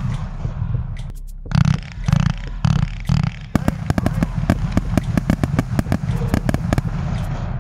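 A consumer fireworks battery firing. A few heavier bangs come about one and a half to three seconds in, then a dense run of rapid crackling reports follows from about three and a half seconds on.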